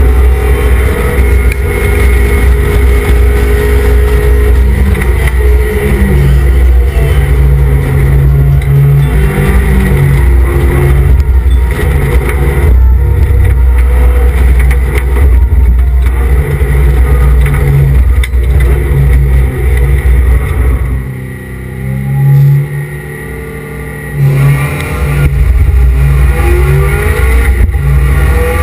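Mazda MX-5 race car's engine heard from inside the cockpit at racing speed, revving hard and climbing in pitch through the gears. About three-quarters of the way through it drops away for a few seconds, with one short burst of revs in the middle, then picks up and climbs again.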